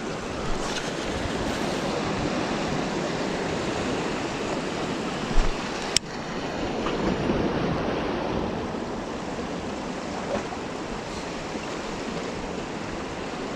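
Ocean surf washing steadily around shoreline rocks, with a short thump and then a sharp click about halfway through.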